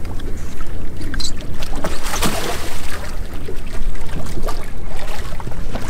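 Water splashing as a hooked bull redfish thrashes at the surface, over a steady low rumble of wind on the microphone, with the splashing strongest about two seconds in.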